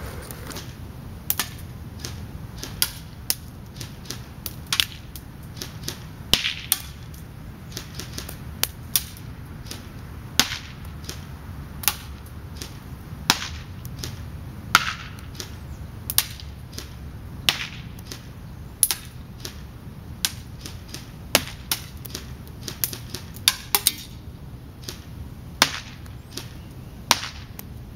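Airsoft shooting at a target with an A&K SR25: sharp clicks and cracks, irregular and roughly once a second, some in quick pairs, from the BBs and the gun's single shots.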